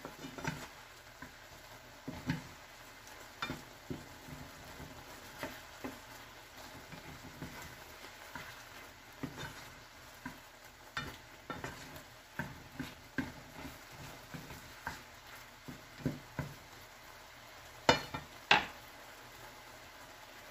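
Slotted wooden spatula stirring sliced mushrooms in a nonstick frying pan, with scattered knocks and scrapes against the pan. Under them is a steady faint sizzle of the mushrooms simmering in their own released liquid and kalbi marinade. Two louder knocks come close together near the end.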